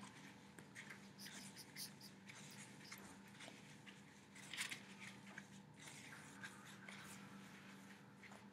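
Foam pre-wrap being unrolled and wound around an ankle: faint, scratchy rustles in short irregular strokes over a low steady hum.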